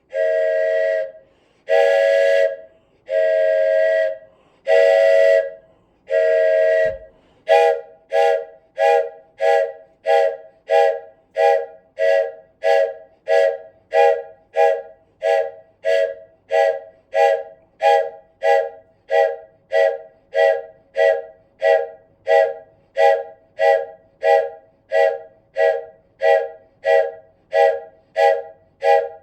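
Wooden train whistle blown in a close chord of several notes: five long blasts of about a second each, then a steady run of short toots, about two a second.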